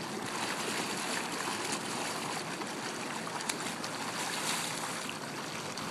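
Pool water splashing and sloshing as two swimmers kick along near the surface: a steady wash of water noise with a few small ticks.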